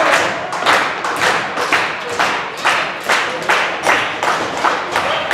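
Wrestling crowd clapping in unison, a steady beat of a little over two claps a second.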